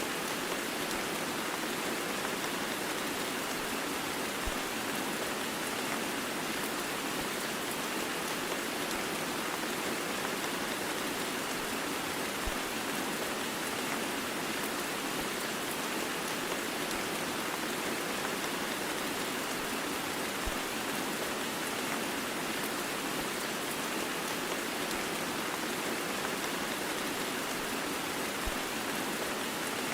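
Heavy rain blended with white noise: a steady, even hiss of dense rainfall that does not change. A faint low click recurs about every eight seconds.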